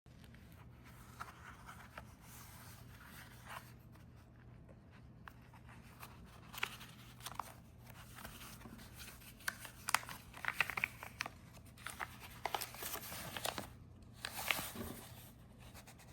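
Paper pages of an art book being handled and rustled, with scattered clicks and crinkles that grow busier and louder about halfway through, over a steady low hum.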